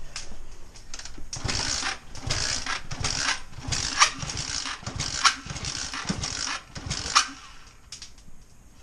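Small motorbike engine firing and running unevenly for about six seconds, with sharp pops along the way, then cutting out with a last pop. The misfiring is taken as water getting into the fuel.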